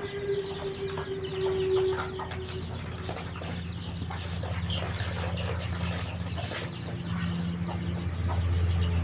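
Chickens clucking in short, scattered calls, over a low steady hum that grows louder toward the end.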